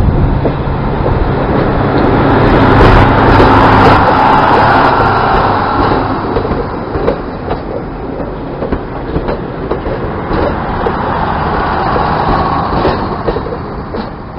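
Red Hen diesel railcars running on the rails, engine drone and wheel noise swelling to their loudest a few seconds in, then slowly easing off, with scattered clicks from the wheels.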